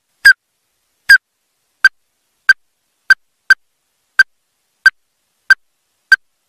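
Ruddy-breasted crake calling: a series of ten short, sharp notes of the same pitch, spaced about half a second to a second apart.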